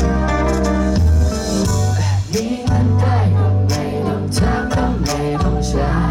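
A Thai pop song playing loudly through a concert sound system, with heavy sustained bass and guitar.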